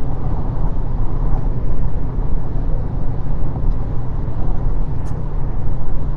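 Steady low rumble of a moving vehicle, picked up by a phone's microphone.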